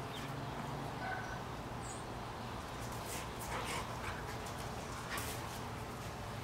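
Two young pit bull-type dogs play-wrestling on concrete: faint scuffling and soft dog noises, with a few brief scrapes, over a steady low hum.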